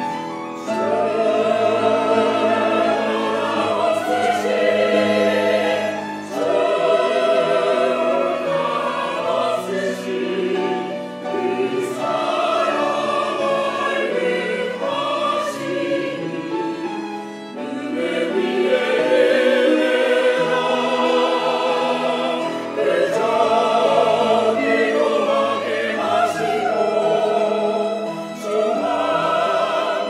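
Mixed church choir singing a Korean choral anthem in sustained phrases with vibrato, accompanied by violins. The choir comes in about half a second in, after a violin passage.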